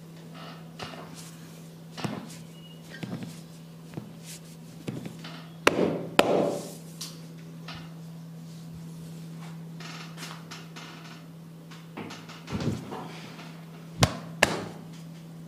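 Hands working over a person during an oil massage: soft rubbing and brushing sounds with a few firmer pats, and two pairs of sharp smacks about half a second apart, one pair near the middle and one near the end, over a steady low hum.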